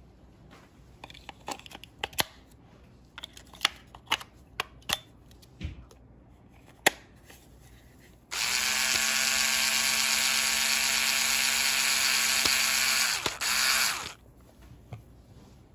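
Scattered clicks and taps of handling, then a cordless electric screwdriver turning a screw in the plastic base of a plush cactus toy: a steady motor whine for about six seconds that stops briefly and restarts just before it ends.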